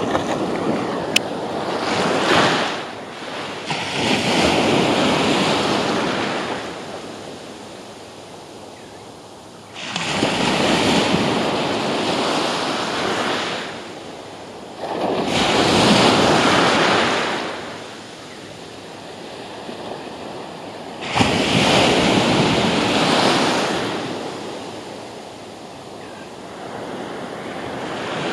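Small surf washing up the beach in four swells, each building and fading over a few seconds, about five to six seconds apart. A single sharp click about a second in.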